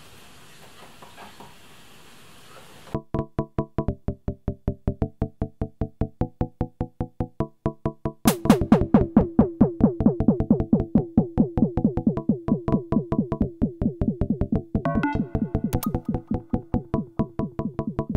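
Elektron Model:Cycles groovebox starting a sequenced pattern of rapid, short pitched synth notes about three seconds in, after faint hiss. The pattern gets louder and fuller about eight seconds in as more of it is brought in.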